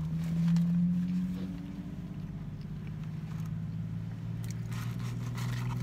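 Steady low hum of a car's idling engine heard from inside the cabin. Near the end there is a soft rustle of a paper fry carton being handled.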